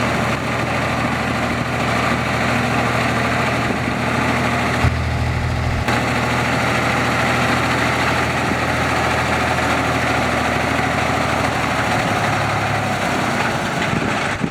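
Caterpillar 3206 six-cylinder diesel engine of a concrete mixer truck idling steadily. About five seconds in, the sound turns deeper and duller for about a second.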